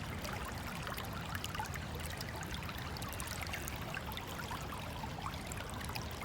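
Creek water trickling steadily, with faint scattered little splashes and gurgles.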